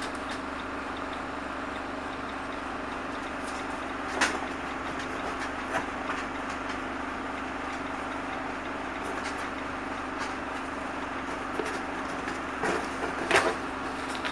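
A steady low mechanical hum, with a few light clicks and knocks, one about four seconds in and a small cluster near the end.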